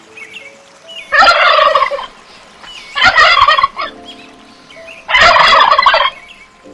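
A large bird's loud, rapid rattling call, given three times, each about a second long, over faint background music.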